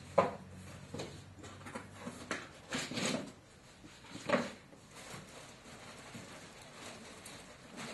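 Irregular knocks and clatters of parts and tools being handled, the sharpest just after the start and another about four seconds in, then only quieter handling noise.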